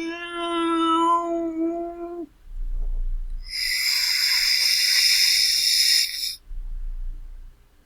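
A domestic cat's long, steady meow that ends about two seconds in, followed shortly after by a hiss of about three seconds.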